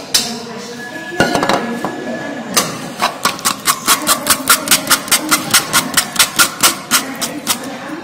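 Metal spoon pressing and stirring cooked wheat starch paste against a stainless steel mesh sieve, forcing the lumps through to smooth the adhesive. From about three seconds in, the spoon clicks and scrapes on the mesh in a quick regular rhythm, about four or five strokes a second.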